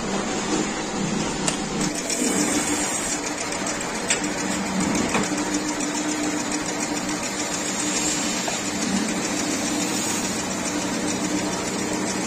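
A small plastic extrusion blow-moulding machine running with a steady hum and hiss, with a few faint clicks.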